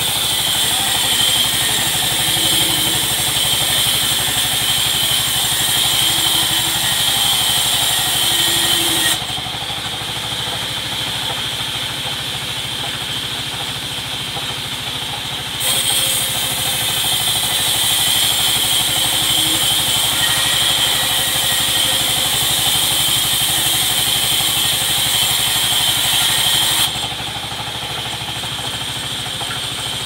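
Vertical band saw ripping a teak plank, making a high cutting noise over the steady drone of the motor driving the mill. The cut runs for about nine seconds, stops for about six, then runs again for about eleven seconds before stopping near the end.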